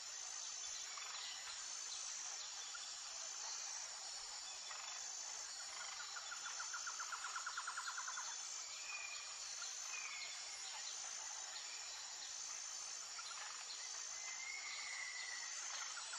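Outdoor nature ambience: a high insect note pulsing about once a second over a steady hiss. A rapid trill sounds for about two seconds midway, and a few short bird chirps come near the middle and toward the end.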